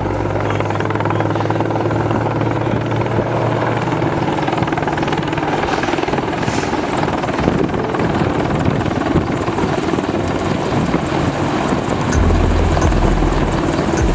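Helicopter running, a steady loud rotor and turbine noise.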